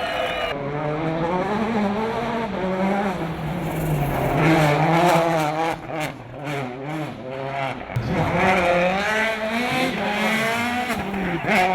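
Citroën DS3 WRC rally car's turbocharged four-cylinder engine driven hard, its note rising and falling again and again through gear changes. About six seconds in it drops off briefly with a string of sharp cracks, then climbs again.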